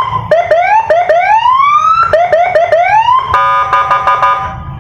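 Custom Senken police-escort electronic siren sounding loud and switching through its tones. It gives a run of short rising whoops mixed with longer rising wails, then a steady multi-tone note stuttering rapidly on and off for about a second before it cuts off shortly before the end.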